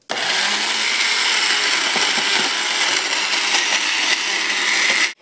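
Magic Bullet blender running steadily, blending a mix of chocolate, peanut butter and bacon bits; it starts suddenly and cuts off just before the end.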